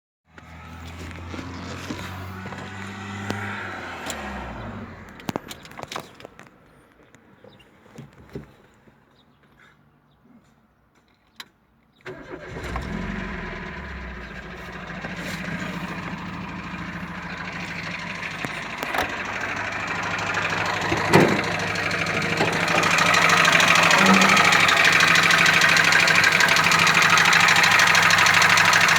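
Dacia Solenza car engine running, then stopping about four and a half seconds in, with a few clicks in the quiet that follows; it is restarted about twelve seconds in and idles steadily, louder from about twenty-three seconds in. The running engine carries an unexplained knock that the owner cannot diagnose and that does not go away once the engine is warm.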